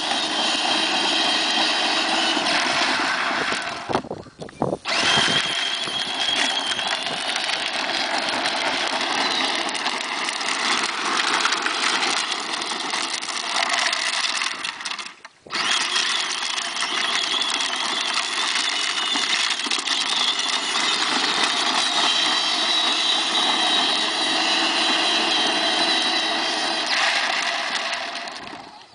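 Peg Perego Rodeo children's electric ride-on jeep driving at full power: a steady high whine from its electric motors and gearboxes over the noise of its plastic wheels on the road. The sound drops out briefly twice, about four seconds and fifteen seconds in.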